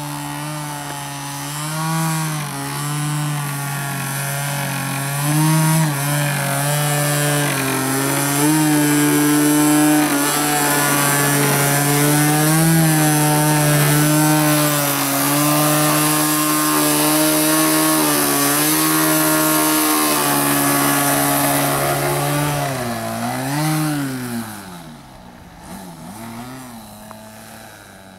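Propeller and motor of a 3D aerobatic RC model plane running at high throttle, a loud buzzing drone whose pitch rises and falls as the throttle is worked. Near the end the pitch swoops down and back up, then the sound falls away to a much fainter level.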